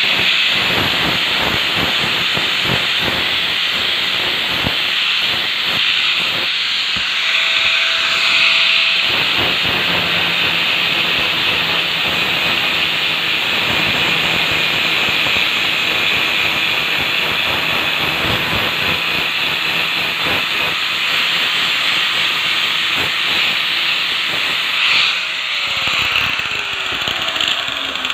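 Angle grinder with a sandpaper disc grinding the burnt, blackened steel soleplate of an electric iron clean: a loud, steady, abrasive hiss over the motor's whine. Near the end the grinder lifts off and its pitch falls as it winds down.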